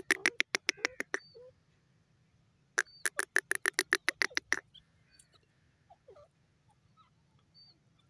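Grey francolin calling: a loud run of rapid, harsh repeated notes at the start, and another a little under three seconds later, each lasting about a second and a half. Faint chirps of small birds follow.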